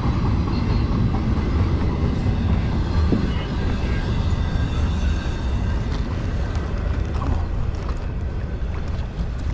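A steady low rumble that holds an even level throughout.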